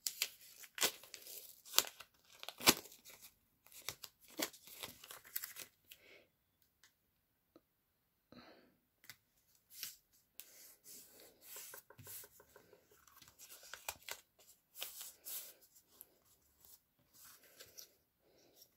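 Brown packing tape being pulled off the roll, torn and pressed down onto card and mount board: a quick run of sharp rips in the first six seconds, then quieter crackling and rustling as the tape is smoothed and the card strips are handled.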